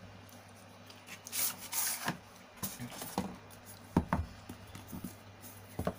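Cardboard phone box being handled and opened by hand: a brief scraping rustle about a second and a half in as the packaging slides, then several light cardboard taps and knocks.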